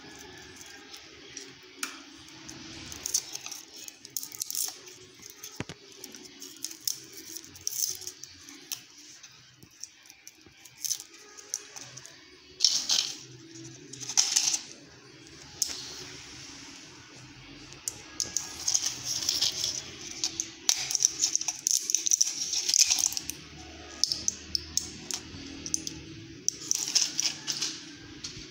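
Garlic being peeled by hand and a foil blister pack of tablets being handled: dry papery rustling and crinkling with many sharp clicks, with louder crinkling spells about halfway through and again later on.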